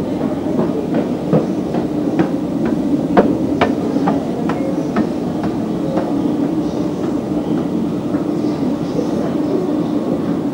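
Escalator running with a steady low hum, with hard shoes clicking on its metal steps about twice a second for the first six seconds or so.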